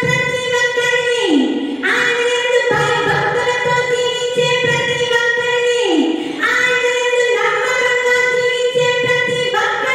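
A woman singing into a handheld microphone, holding long notes and sliding down in pitch between phrases, twice.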